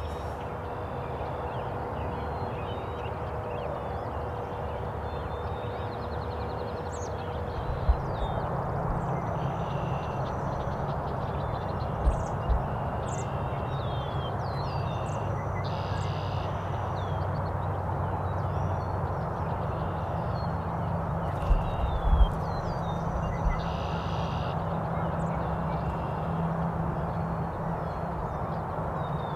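Early-morning birdsong in an open field: scattered high chirps and warbles from small songbirds and two longer, harsher calls about halfway and two-thirds of the way through, over a steady rushing background, with a few low thumps.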